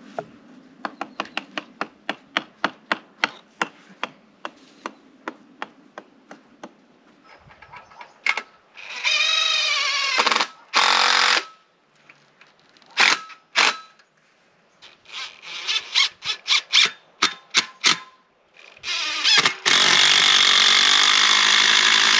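Power tools working on a pallet-and-aluminium solar panel mount. A run of sharp, evenly spaced taps, about four a second, comes first. Then a drill motor spins up and down in short bursts, and near the end comes a longer, louder run of the tool.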